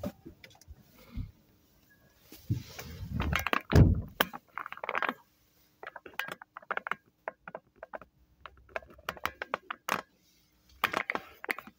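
Rustling with a heavy thump of a car door shutting about four seconds in, then a run of small clicks and knocks.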